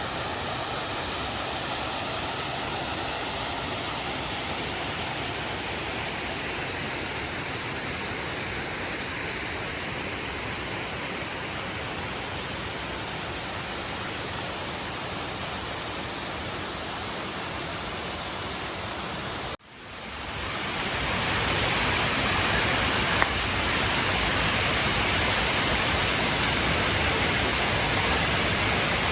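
Steady rush of falling water from a waterfall. About two-thirds of the way through it cuts out, then swells back in louder and hissier.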